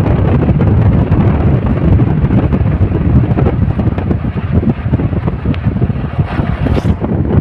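Wind buffeting the microphone of a moving vehicle, with a continuous low rumble of road and travel noise that gusts unevenly. A brief high hiss comes about six seconds in.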